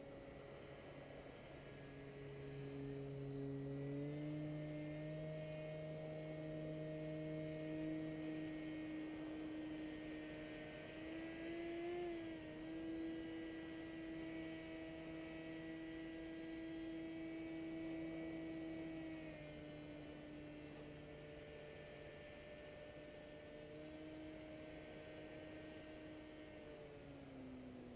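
Paramotor engine and propeller droning steadily overhead, its pitch rising as the throttle opens about four seconds in, easing back about two-thirds of the way through, and dropping again at the end.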